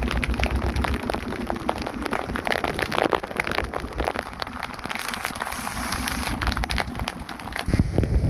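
Heavy rain falling at sea: a steady hiss dotted with many sharp drop ticks close to the microphone. A low wind rumble on the microphone fades in the first second and returns briefly near the end.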